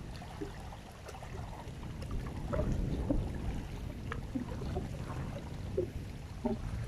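Steady low outdoor rumble with faint water lapping, and scattered short faint chirps and ticks.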